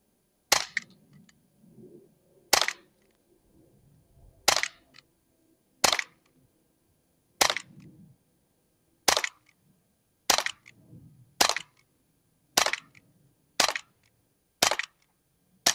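Umarex Glock 19X CO2 blowback BB pistol firing about a dozen single shots, each a sharp crack, one every one to two seconds and coming a little faster toward the end.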